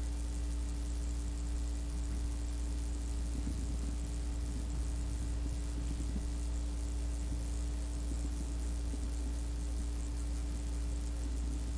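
Steady low electrical hum with even tape hiss, the background noise of an old cassette recording.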